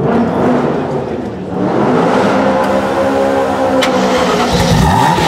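Ferrari F40's 2.9-litre twin-turbo V8 with a Tubi exhaust starting up and settling into a loud, busy idle, then revved briefly near the end.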